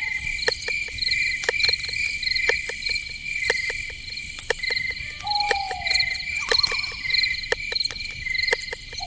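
Crickets chirping in a steady, rapidly pulsing chorus, with many sharp ticks scattered through it. About five seconds in, another animal gives a short falling call, followed by a brief second call.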